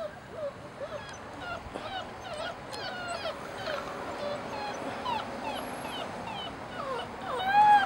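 Basset hound puppies whimpering and squealing: a string of short, high, bending whines, with a louder, drawn-out whine near the end.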